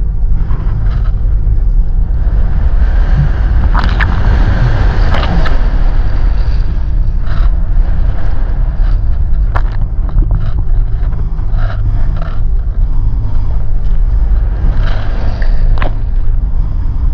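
Wind rushing and buffeting on a body-worn camera's microphone while riding a kite-pulled hydrofoil board at speed, a steady low rumble with water hissing past. A few sharp slaps or knocks stand out, the loudest about four and five seconds in.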